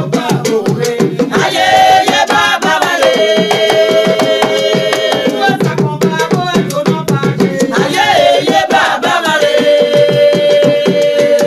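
Music with fast, dense hand-drumming and percussion under long held melodic notes.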